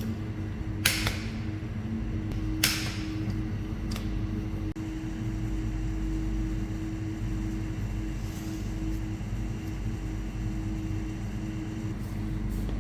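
Steady low mechanical hum, with a sharp click about a second in, another near three seconds, and a fainter one around four seconds.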